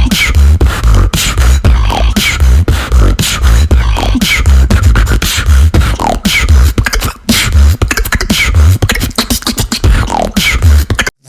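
Female beatboxer performing a solo beatbox routine: deep bass hits in a steady rhythm under sharp percussive clicks and repeated falling whistle-like sweeps. It cuts off abruptly just before the end.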